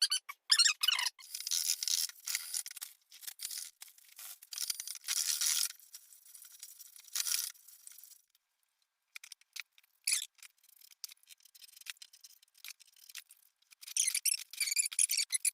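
Drill bit squealing as it cuts holes in the steel forge body, in stop-start bursts.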